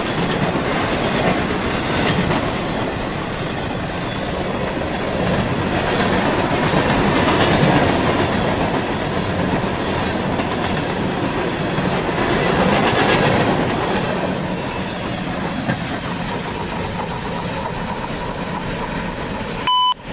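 CSX manifest freight cars, boxcars and gondolas, rolling past close by: a steady rumble of steel wheels on rail that swells and eases a few times. A short, loud electronic beep cuts in just before the end.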